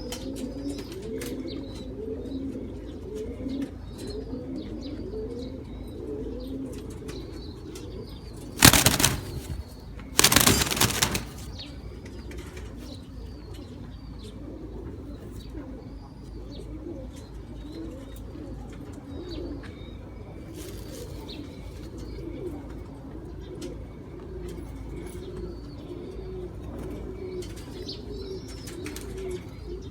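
Pigeons cooing continuously in low, wavering calls, with two loud bursts of wing flapping about nine and eleven seconds in. Faint, high chirps repeat in the background.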